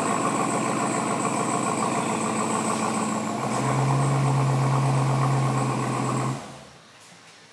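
Ram TRX's supercharged 6.2-litre HEMI V8 idling steadily. A deeper, louder drone comes in a little past three seconds in, and the sound cuts off suddenly a little after six seconds.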